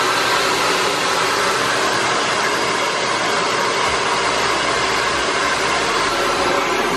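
Handheld hair dryer blowing steadily while drying hair.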